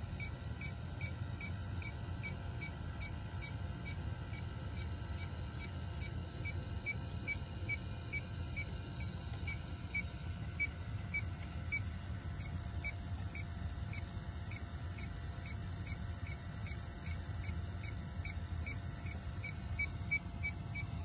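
Inficon D-Tec 3 refrigerant leak detector beeping steadily, about two to three short high beeps a second, with its probe in the evaporator plenum. The alarm is picking up a Freon leak in the frozen evaporator coil. A low steady hum runs underneath.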